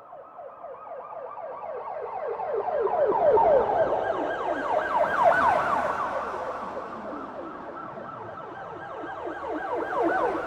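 Police siren in a fast yelp, its pitch sweeping down over and over several times a second. It grows louder to a peak midway, fades back, and swells again near the end, like a siren passing.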